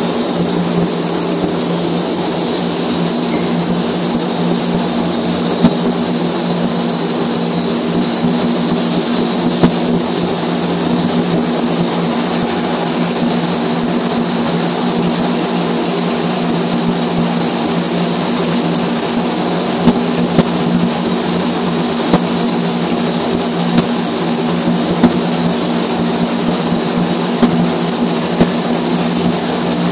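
Steady, loud machine drone with a faint wavering high whistle through the first dozen seconds. From about twenty seconds in come scattered sharp pops from flux-cored arc welding overhead on steel.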